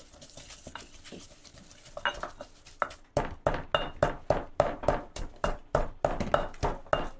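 Stone pestle pounding dried chilies into curry paste in a stone mortar. It is soft and scattered at first, then from about three seconds in comes a steady run of strikes, about three or four a second, breaking down the dry chilies.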